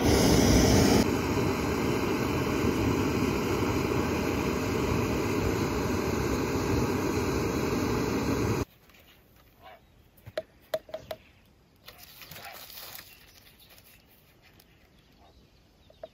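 A loud, steady rushing noise that cuts off abruptly a little past the middle, followed by a few light clicks and knocks.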